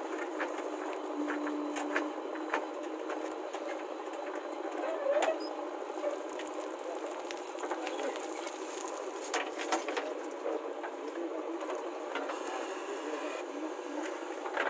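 JCB 3DX backhoe loader working, its engine and hydraulics running with a steady mechanical clatter while the bucket digs and dumps soil, with scattered clicks and knocks. The sound is thin, with no low rumble.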